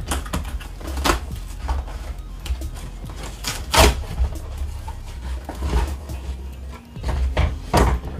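A cardboard shipping box being pulled open and a shrink-wrapped product box slid out of it and handled: irregular scraping and rustling with several sharp knocks, the loudest about four seconds in.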